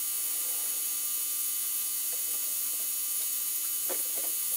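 Steady electrical hum with a constant hiss, and a faint click about four seconds in as metal forceps dip into a caustic soda stripping bath.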